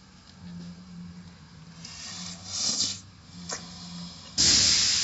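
Automatic car wash machinery: a low hum that comes and goes, a short hiss of spray about two and a half seconds in, then a sudden loud hissing spray near the end.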